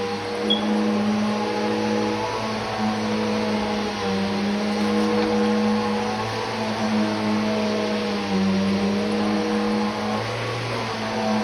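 Vacuum cleaner running steadily, its motor hum shifting slightly in pitch every few seconds as it is worked over the floor.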